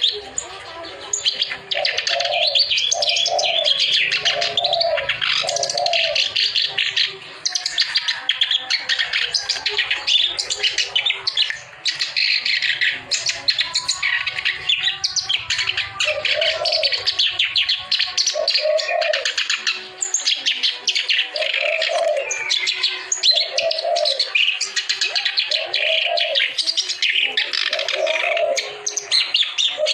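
Kerak basi, a reed warbler, singing a loud, continuous, rapid chattering song, with only brief breaks. Low cooing notes from a dove come in groups of about one a second beneath it.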